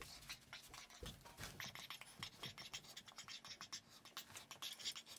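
Faint, irregular scratching and light tapping, many small clicks close together, with a soft thump about a second in.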